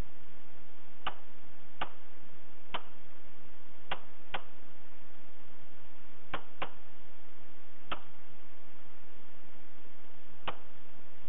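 Semi-automatic handgun fired nine times at uneven intervals, including two quick pairs, over a steady hiss.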